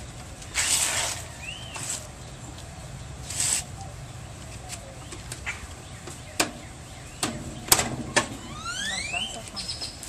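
Scraping, clicks and knocks as a washing machine's back panel is handled and fitted back onto the cabinet, with the sharpest knocks about seven to eight seconds in. Brief high rising squeaks come near the start and near the end.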